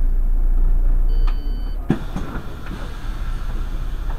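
Irisbus Crossway LE city bus heard from inside: a steady low engine and road rumble, with a short high two-tone beep about a second in, followed by one sharp knock.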